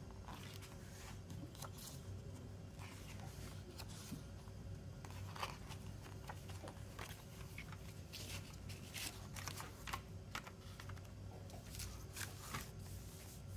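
Pages of a CD's printed lyric booklet being turned and handled: a string of soft, short paper rustles and flicks. Near the end the plastic jewel case is picked up and handled.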